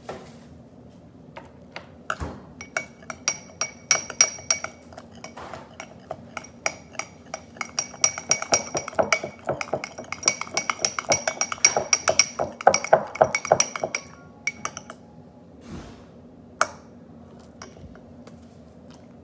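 Metal spoon clinking against a small glass bowl in quick, uneven strokes while stirring baking soda and liquid soap, with a faint glassy ring. It starts about two seconds in, is busiest in the middle, and thins to a few stray clinks near the end.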